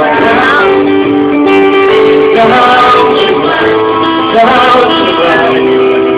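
Live music played close by: a strummed guitar with a singing voice over it.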